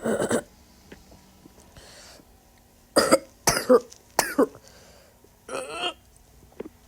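A person coughing: one short cough, then a run of four more about three seconds later.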